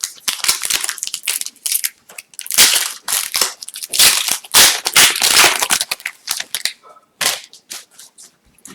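A hockey card pack's foil wrapper being torn open and crumpled: loud, irregular crinkling and rustling for about seven seconds, dying down to a few light ticks near the end.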